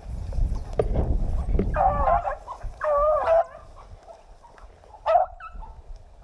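Rabbit-hunting dogs baying on a running rabbit: two drawn-out wavering bays about two and three seconds in, and a short one about five seconds in. A low rumble of wind or handling noise on the microphone runs through the first two seconds.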